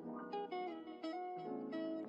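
Background music led by a plucked guitar, playing a run of short melodic notes.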